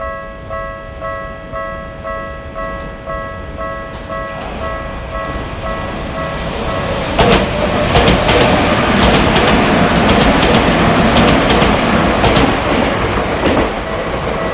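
Japanese level-crossing warning bell ringing its repeating "kan-kan" at about two strokes a second. An electric train comes up from about four seconds in and passes loudly from about seven seconds, its wheels clacking over the rail joints and covering the bell. The bell can be heard again near the end.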